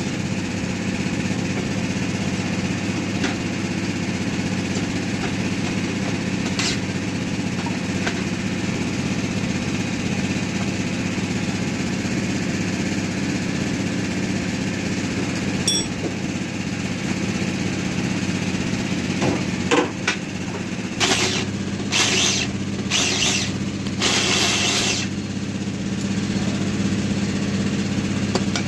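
Steady mechanical hum of workshop machinery running, with a constant low drone. Scattered sharp metallic clicks from handling metal parts, and about twenty-one seconds in a run of short, harsh metallic bursts.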